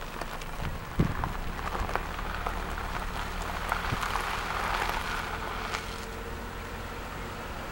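Wind noise on the microphone, with scattered clicks and crackles.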